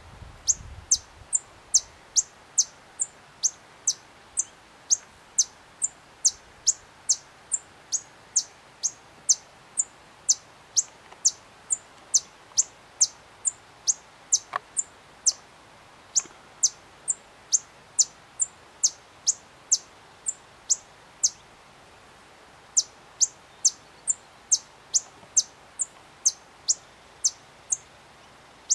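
White-vented violetear hummingbird singing: a long run of sharp, high chip notes, each sliding down in pitch, repeated about twice a second with a couple of short breaks.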